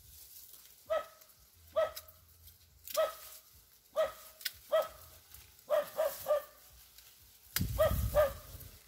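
A dog barking persistently: about ten short single barks at uneven intervals, some in quick runs of two or three. Near the end a low rumble comes in under the last two barks.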